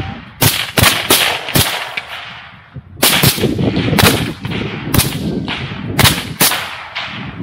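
Rapid semi-automatic rifle fire from two AR-style rifles: about a dozen sharp shots, each with a short echoing tail, in a quick string over the first second and a half, a brief lull, then another string from about three seconds in to near the end.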